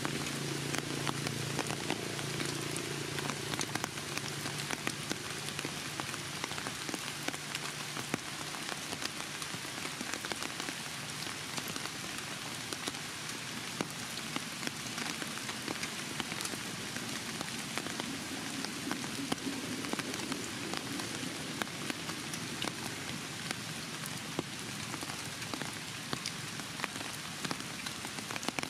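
A steady crackling hiss, dense with small ticks, with a low hum underneath in the first few seconds and again about twenty seconds in.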